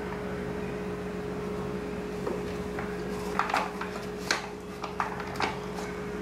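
Spoon scraping and knocking while thick, spongy cake batter is spooned into a paper panettone mould: a handful of short scrapes and taps in the second half, over a steady low hum.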